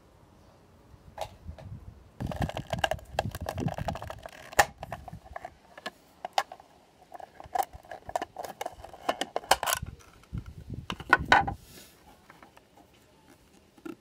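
Plastic case of a Singer Heavy Duty sewing machine foot pedal being handled and prised open: a run of clicks, snaps and scraping of plastic, with dull knocks in two busy spells.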